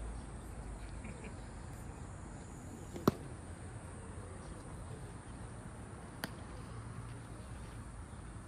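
Two sharp smacks of a baseball in play, a loud one about three seconds in and a fainter one about three seconds later, over steady outdoor background noise.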